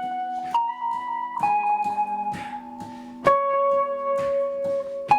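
A band playing: held lead notes that step to a new pitch every second or two, over a steady drum beat with cymbal hits.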